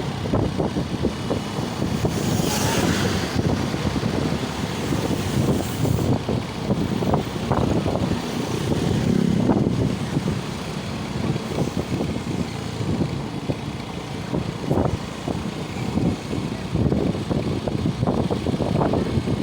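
Vehicles on the move on a road: a steady, uneven rumble of engine and road noise, with a brief hiss about two to three seconds in.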